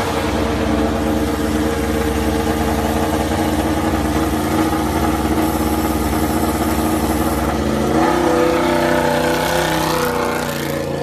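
Yamaha YZR-M1 MotoGP bike's inline-four engine running steadily at idle, then revving with the pitch rising and falling from about eight seconds in as the bike pulls away.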